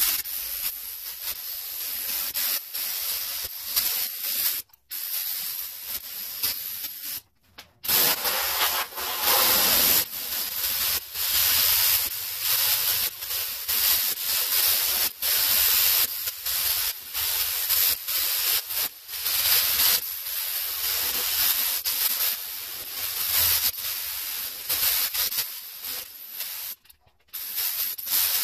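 Compressed-air paint spray gun with a gravity-feed cup spraying a coat of paint onto a fiberglass jet ski hull: a steady, loud hiss of atomizing air that cuts off briefly three times as the trigger is released.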